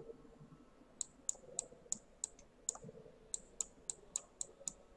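Computer mouse button clicking repeatedly, a quick run of short sharp clicks about three or four a second starting about a second in, as dashed lines are drawn in a paint program.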